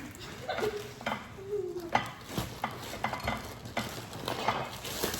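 A utensil stirring in a mixing bowl, with irregular clinks and scrapes against the bowl.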